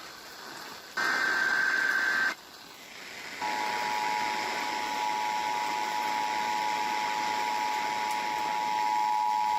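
Emergency Alert System broadcast over radio hiss. About a second in comes a one-second burst of the SAME digital header screech; after a short gap, the steady two-tone EAS attention signal starts and holds, announcing a severe thunderstorm warning.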